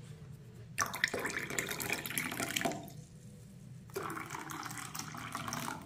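Liquid poured from a plastic jug into drinking glasses in two pours, the second a little quieter, each splashing for about two seconds.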